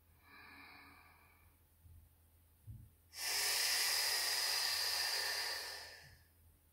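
A woman's Pilates lateral breathing with the abdominals held firm: a quiet in-breath, then about three seconds in a long, loud out-breath lasting about three seconds.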